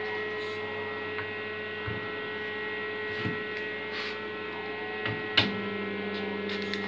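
Steady mains hum with many overtones from the homemade spot welder's 9 kW AC transformer, switched on and idling. Light knocks of metal plates and a hammer being handled on the bench, with a sharper knock about five and a half seconds in, after which the hum's tone shifts slightly.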